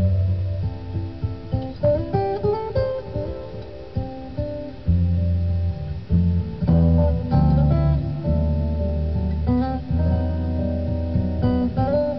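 Background music led by plucked and strummed acoustic guitar, with low sustained notes under a changing melody.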